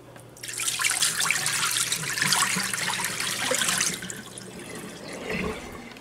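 Water poured out of a glass pitcher into a kitchen sink, splashing for about three and a half seconds and then tapering to a dribble. It is cloudy flush water from a newly installed refrigerator water filter being dumped.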